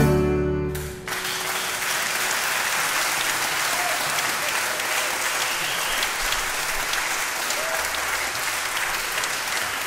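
The final chord of a piano quartet rings out and stops about a second in, then a seated audience applauds steadily.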